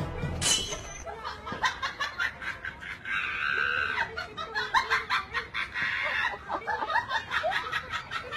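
Several people laughing in rapid, choppy bursts, after a short whoosh about half a second in.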